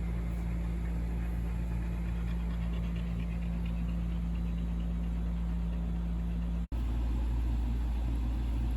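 Steady low drone of a car's engine and road noise heard inside the cabin, with a dog panting faintly in the middle.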